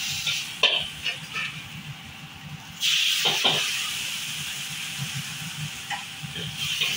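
Metal ladle and spatula clattering and scraping against a carbon-steel wok during stir-frying. About three seconds in, a sudden loud sizzle starts and slowly dies down, over the steady low rush of the wok burner.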